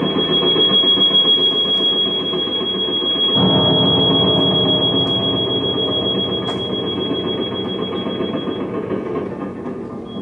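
Contemporary piano and live-electronics music: dense low-register piano playing beneath a steady high electronic tone. The tone holds until shortly before the end, and the low texture thickens about a third of the way in.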